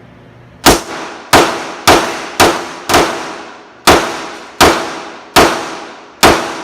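Gunshots at a shooting range: a firearm fired nine times in quick succession, about one shot every half second to second with a brief pause midway, each shot ringing out briefly.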